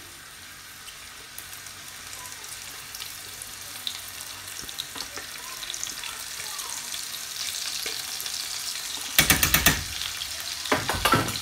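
Chopped onion frying in hot oil and butter in a pan, a steady sizzle with fine crackling that slowly grows louder. About nine seconds in comes a burst of loud, sharp sounds, and more follow near the end.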